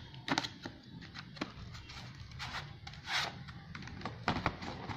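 Small cardboard art-supply boxes being handled and shifted in their packaging tray: a few light knocks and clicks, with a longer scraping rustle about three seconds in.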